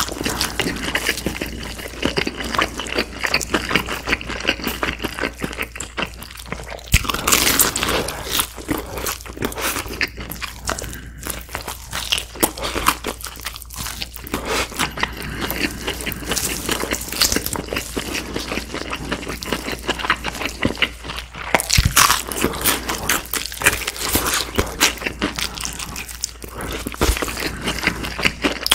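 Close-miked crunching and chewing of crispy fried chicken: bites into the battered drumstick's coating crackle sharply between spells of chewing. Louder crunches come about 7 seconds in, again about 22 seconds in and near the end.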